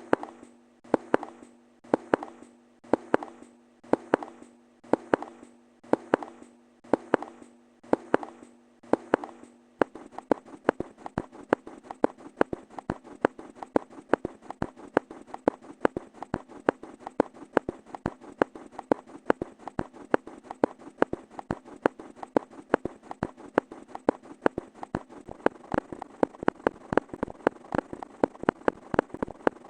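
A run of short, sharp click-like sound effects, about one a second over a steady low tone for the first ten seconds, then speeding up to several a second for the rest.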